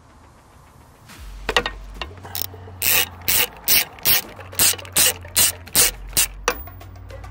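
Ratchet wrench with a 17 mm socket undoing the nut on a car's upper right engine mount, a few clicks and then eight or nine loud rasping strokes in a steady rhythm, about two to three a second.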